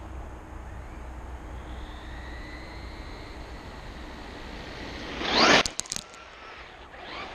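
Traxxas electric RC car running on 3S power, its high motor whine building in the distance and then a loud whoosh as it passes close by at speed, peaking about five and a half seconds in, followed by a few sharp crackles.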